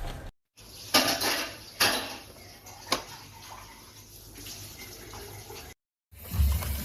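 Three clattering knocks, like dishes or cutlery being handled, about a second apart, over a faint hiss.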